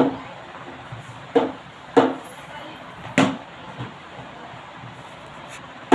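Sharp knocks of a plastic cricket ball played with a plastic bat on a hard floor: the ball bouncing and being struck, about five knocks at uneven intervals.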